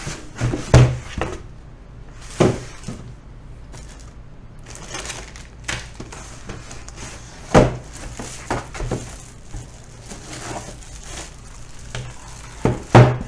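A liquid CPU cooler's packaging being unpacked: a cardboard box and molded pulp tray being lifted and handled, with four sharp knocks against the wooden table and lighter rustling between them.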